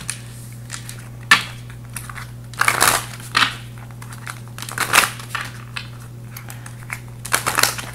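A deck of round oracle cards being shuffled by hand, in about five short rustling bursts of card sliding against card, with a steady low hum underneath.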